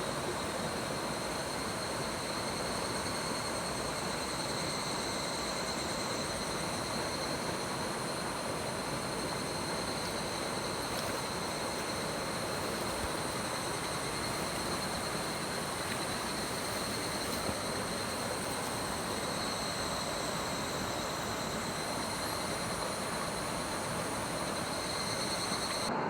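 Steady rush of a mountain stream's flowing water, with a thin, steady high tone running through it.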